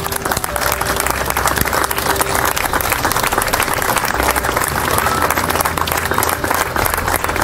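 A crowd of mourners applauding steadily, many hands clapping at once.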